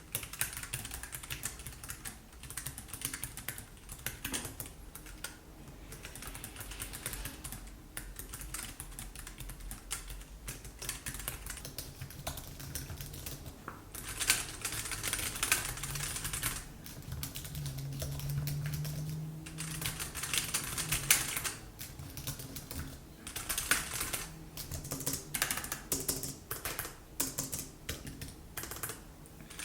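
Continuous typing on a low-profile computer keyboard: rapid, uneven key clicks, with faster, louder runs about halfway through and again a little later.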